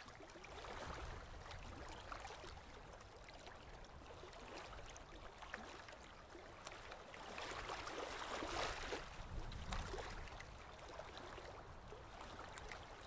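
Faint ocean surf washing onto a sandy beach, a steady rush that swells briefly about eight seconds in.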